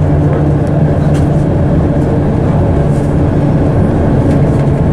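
Amsterdam tram running: a steady rumble of wheels on rail with a low electric motor hum.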